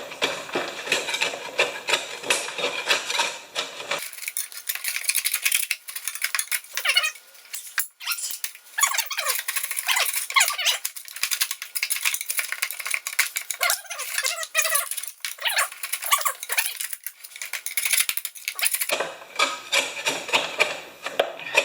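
Rapid, irregular rattling and clicking of dried grass and debris being cleared from under a lawn mower deck. From about four seconds in until near the end the sound turns thin and high, with no low end.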